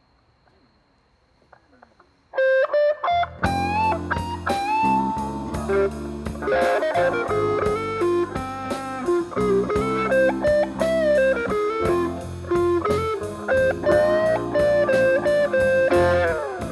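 Live electric blues band starting a slow blues: an electric guitar comes in about two seconds in, and a second later the drums, bass and keyboard join under a lead guitar line full of bent notes.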